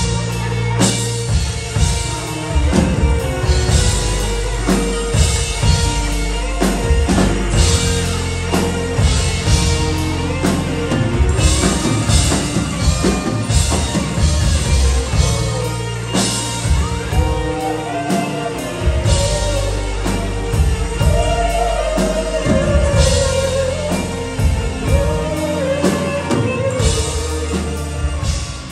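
Live band playing a rock/funk song: drum kit beat, electric guitar and keyboards, with a lead singer's voice wavering over the top in the second half.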